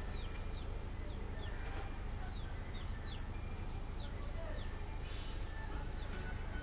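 Chickens making short, falling chirps again and again at irregular intervals, over a steady low hum.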